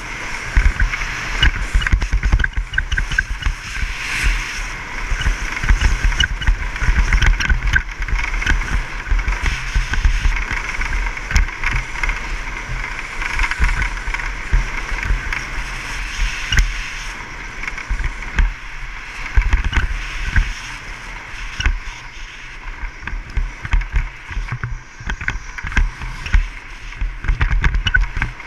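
Wind buffeting the microphone as a low rumble, over a steady hiss and scrape of edges carving packed snow on a fast downhill run.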